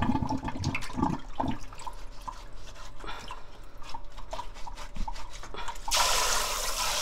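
Hands swishing and rubbing half-dried flounder in a pot of water, with irregular splashes and drips. About six seconds in, the tap is turned on and water runs steadily into the pot.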